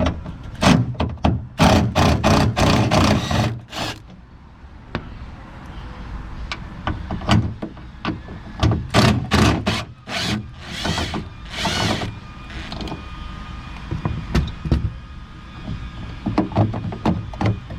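Hand ratchet clicking in quick runs as the trunk latch bolts are unscrewed, mixed with knocks and clatter of the tool against the latch.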